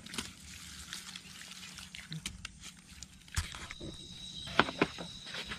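Hands rubbing and squeezing raw octopus with salt in a plastic basin, a soft wet rubbing. About three and a half seconds in this gives way to a kitchen knife cutting potato on a plastic cutting board, a few sharp knocks, while crickets chirp steadily.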